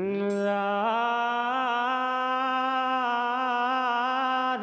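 A man singing one long held note of a Hindi bhajan into a microphone: the voice slides up as it starts, steps up a little about a second in, then holds the pitch with a slight waver.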